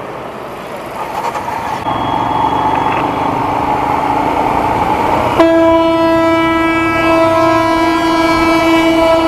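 Road and riding noise, then about five seconds in a loud road-vehicle air horn sounds suddenly and holds as one steady chord of several tones: a train-style horn.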